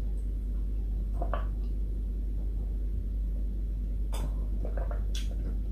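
A person drinking water from a clear plastic cup: a few short, soft swallowing and cup sounds, about a second in and again around four to five seconds in, over a steady low hum.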